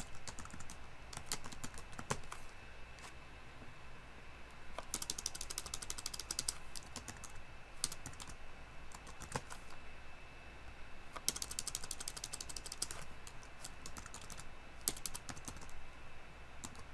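Computer keyboard typing: clusters of rapid keystrokes with single key presses and short pauses between them, as code is edited.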